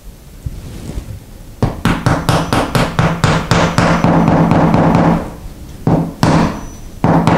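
Small hammer tapping a metal molly anchor into drywall. A quick run of light strikes, about five a second, lasts a few seconds over a low ringing hum, then a few slower single taps come near the end.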